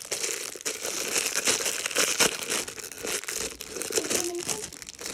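Plastic packaging crinkling and tearing as it is unwrapped by hand, a dense run of crackles.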